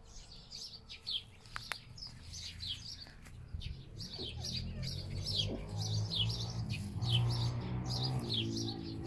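Small songbirds chirping over and over, short falling notes several a second. A low hum with a faint pitched tone comes up in the second half.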